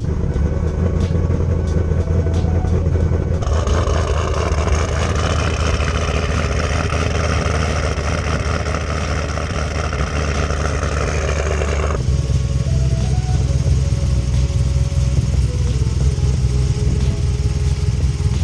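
2010 Camaro SS's 6.2-litre LS3 V8, with an aftermarket cam, long-tube headers and Borla ATAK axle-backs, idling just after being started. Its note changes about twelve seconds in. There is no exhaust-leak sound: the new header gaskets have sealed it.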